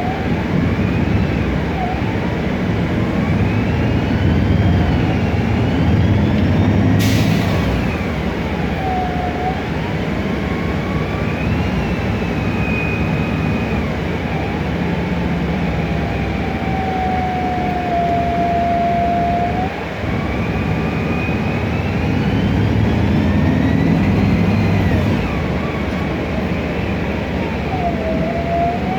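Inside a 2007 MAN Lion's Classic city bus on the move. The CNG engine's rumble swells as the bus accelerates, and the Voith DIWA automatic gearbox whines, its pitch gliding up and down with speed. Road and air noise comes through the open ventilation, and there is a single sharp knock about seven seconds in.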